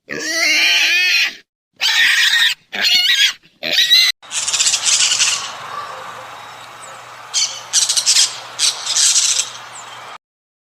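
Recorded animal calls: a long wavering pitched call, three short sharp cries, then a harsh noisy stretch broken by several shrill squawks near the end.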